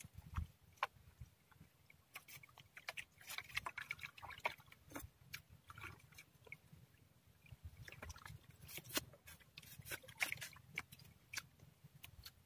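Faint eating sounds: irregular small clicks and smacks of chewing, and a spoon picking at a cooked fish.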